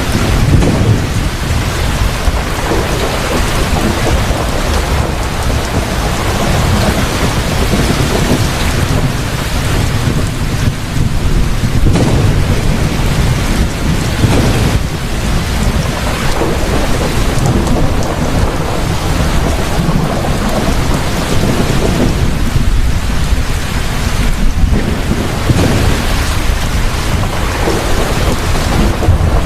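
Heavy rain pouring steadily in a thunderstorm, with low thunder rumbling under it and swelling every few seconds.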